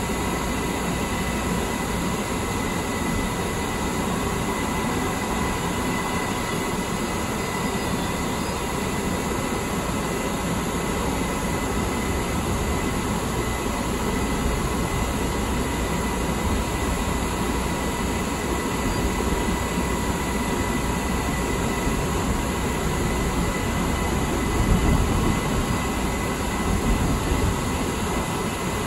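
Light rail car running along the track, heard from inside its front cab: a steady rumble of wheels on rail with a faint steady whine. A few louder bumps come near the end.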